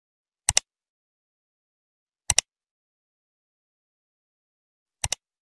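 Mouse-click sound effect, a quick double click heard three times, with dead silence in between.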